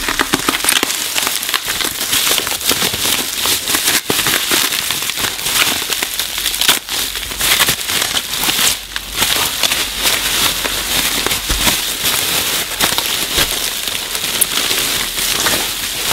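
Bubble-wrap packaging crinkling and crackling as it is handled and pulled open by hand: a continuous run of small crackles and clicks.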